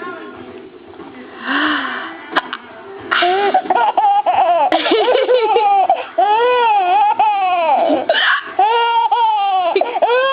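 A six-month-old baby laughing in repeated high-pitched squeals, louder from about three seconds in, with a few short noisy bursts between them.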